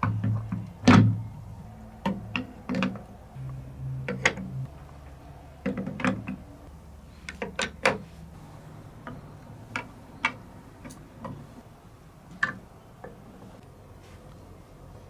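Marbles rolling and clattering down plastic TrixTrack wave-slope marble-run track. There are irregular sharp clicks and knocks over a low rolling rumble that is heaviest in the first few seconds, and the loudest knock comes about a second in.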